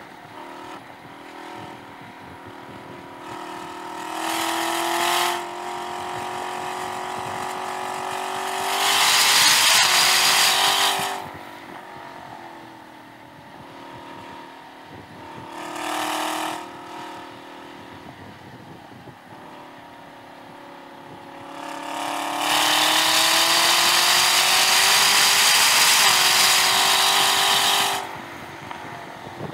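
Chevrolet Camaro ZL1 1LE's supercharged 6.2-litre V8 on track, running at part throttle through corners between several pulls at full throttle that rise in pitch. The longest and loudest pull comes in the last few seconds, winding up towards 6,000 rpm on the straight.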